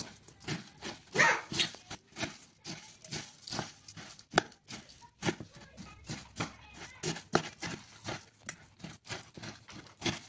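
A metal spoon clinking and scraping against a steel bowl as dry puffed rice is tossed and mixed, giving a quick, irregular run of clicks and rustles, with a louder scrape about a second in.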